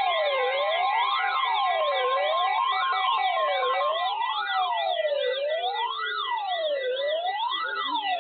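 Electronic siren wailing, its pitch sweeping up and down about every second and a half, with a faster high-pitched yelp over it. Steady background music fades out about halfway through.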